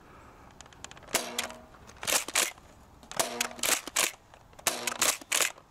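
Nerf Rival Takedown XX-800 pump-action foam-ball blaster being fired and re-pumped: three sharp shots with a short springy ring, about a second and a half apart, each followed by the plastic clacks of the pump being racked back and forward.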